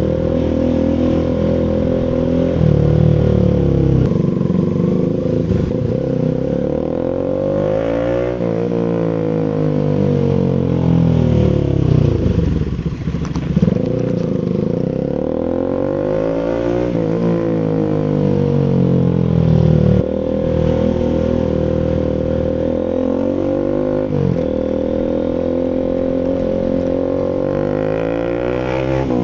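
Bajaj (Rouser) RS200 single-cylinder engine running through an SC Project full exhaust, its note falling and rising again several times as the throttle is opened and closed.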